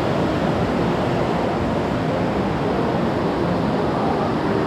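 Creek water rushing over rocks through a cave: a loud, steady, even rush.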